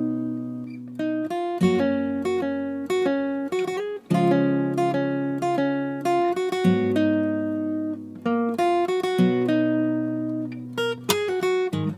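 Instrumental background music: an acoustic guitar playing plucked chords. Each chord fades out and the next follows every second or two.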